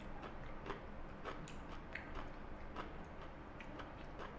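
A person chewing a mouthful of pickled cucumber, heard as faint, irregular soft clicks.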